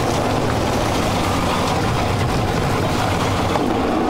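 Outboard engine of an inflatable inshore lifeboat running steadily, with water rushing and splashing around the hull in choppy surf.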